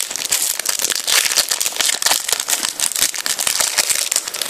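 Foil FIFA 365 trading-card packet crinkling as it is torn and pulled open by hand, a dense run of sharp crackles.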